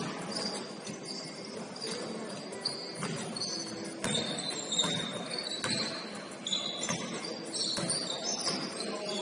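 Basketball bouncing on a hardwood gym floor, with irregular thuds about once a second, short high sneaker squeaks, and players' voices in the background.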